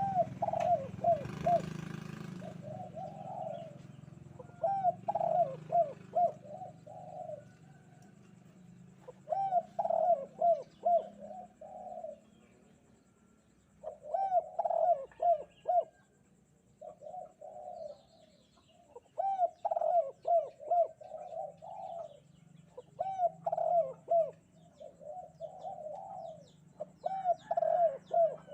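Spotted dove (derkuku) cooing. It gives phrase after phrase of several quick coos, a phrase every two to three seconds, with short pauses between. Faint chirps from other small birds and a low steady hum lie behind it.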